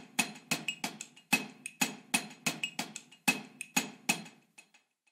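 Sharp ticks in an even rhythm, about four a second, each with the same short ring, from a ticking percussion cue. They fade away and stop about five seconds in.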